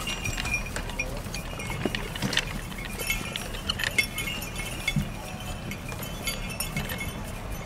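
Metal harness fittings on walking Belgian draft horses jingling and clinking irregularly, with scattered light knocks.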